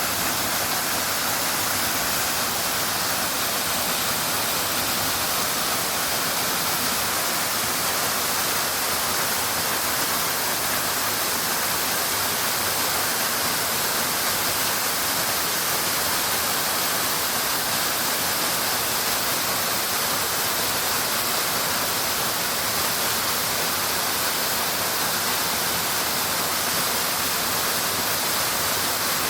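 Waterfall's falling water, a steady unbroken rush heavy in hiss.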